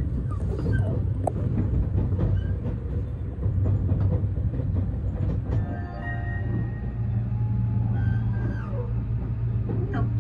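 Steady low rumble inside a Seibu 001 series Laview train's passenger cabin as it pulls out of a station and gathers speed, with background music over it from about six seconds in.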